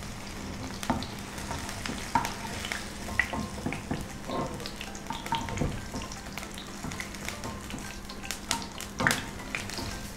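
Tofu pieces frying in shallow oil in a nonstick pan: a steady sizzle with scattered crackles and pops, and light clicks of a wooden spatula as the fried pieces are lifted out.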